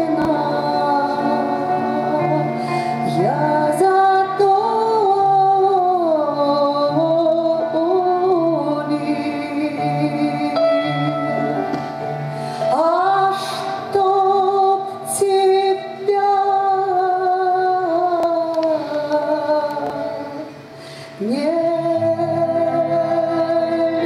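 A woman singing a song in long held phrases, accompanied on a Petrof grand piano. Three times she slides up into a new phrase.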